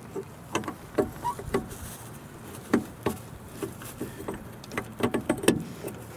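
Irregular small plastic clicks and taps as an H11 halogen bulb is worked into a car's headlight housing, a few of them sharper and louder about three and five seconds in.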